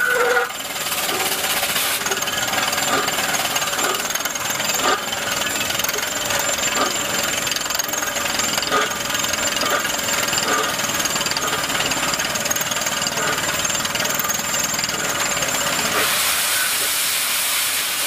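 Down-the-hole drill rig boring into rock: steady rapid percussive hammering with a hiss of compressed air. The hiss rises for a couple of seconds near the end.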